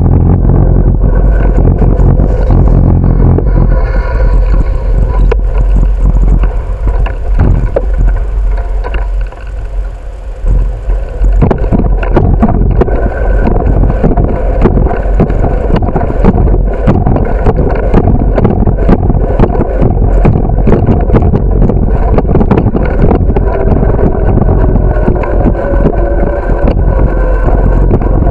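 Wind buffeting the microphone of a camera mounted on a moving bicycle, with steady low rumble and frequent small knocks and rattles from riding over cracked pavement and concrete path joints. It drops off briefly about nine seconds in, then picks up again.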